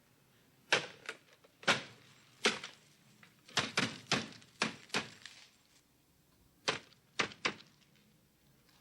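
An irregular series of about a dozen sharp knocks and clicks, some coming in quick pairs.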